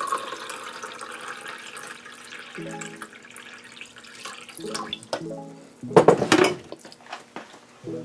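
Water pouring from a pitcher into a stainless steel mug, filling it over the first two seconds or so. Then background music notes and a single clunk about six seconds in.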